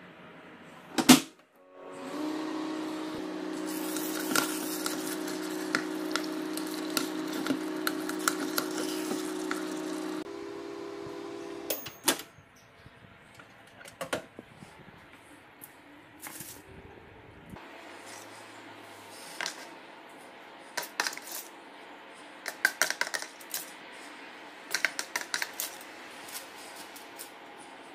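A microwave oven's door clicks and the oven hums steadily for about eight seconds, then stops and the door clicks again. Afterwards a spoon taps and scrapes on a plate a number of times as sauce is spread.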